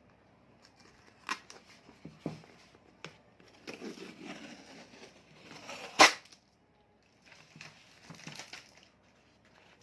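A shipping package being handled and torn open: rustling and crinkling with scattered clicks, and one sharp snap about six seconds in.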